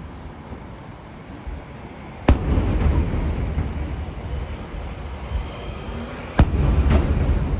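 Aerial firework shells bursting overhead: two sharp bangs about four seconds apart, each followed by a long low rumble that rolls away.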